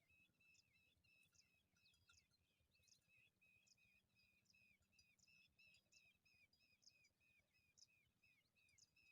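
Faint chirping of small birds: a steady series of short, falling chirps, about two or three a second, with scattered higher chirps mixed in.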